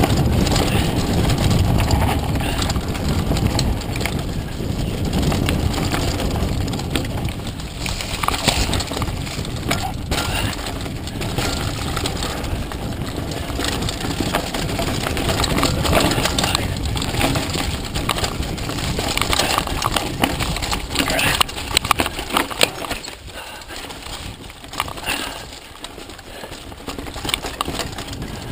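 Mountain bike descending a rough dirt trail at speed: steady wind rush on the microphone and tyre noise, with the bike clattering and knocking over bumps and roots. It gets quieter about three quarters of the way through.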